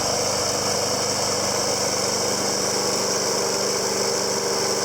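Snapper walk-behind mower's 6.75 Briggs & Stratton overhead-valve single-cylinder engine running at a steady speed.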